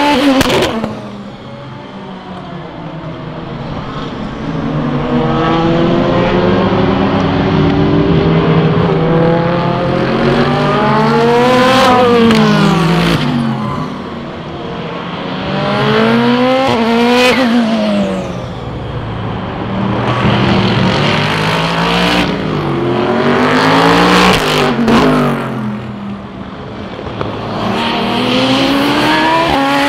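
SUPER GT racing cars going through a slow corner one after another, several cars in about thirty seconds. Each engine drops in pitch as the car slows for the corner, then revs up again in a run of rising steps as the driver shifts up and accelerates away.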